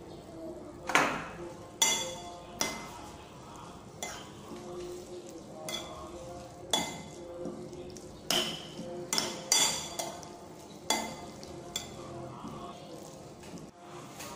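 A metal spoon and fork scraping and clinking against a ceramic plate as a herb-and-chili salad is tossed: about a dozen sharp clinks at uneven intervals, some ringing briefly.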